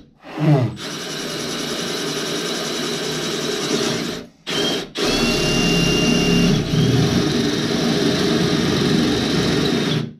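Power drill with a 1/2-inch Diablo tile bit boring into ceramic tile in plain rotary mode, hammer action switched off. It spins up about half a second in, runs steadily, stops briefly twice around four seconds in, and stops just before the end.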